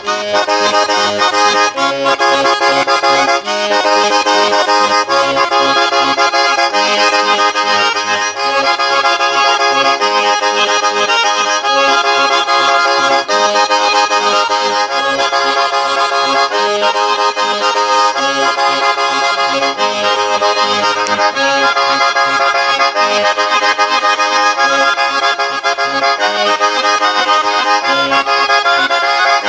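Diatonic button accordion (organetto) playing a tarantella: a continuous melody over a regular pulse of short bass notes.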